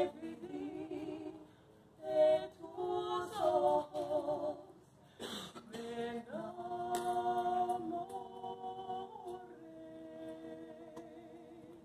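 Two women singing a cappella in two-part harmony, in Ladino. After a few short phrases they hold one long final chord from about six seconds in, which slowly fades.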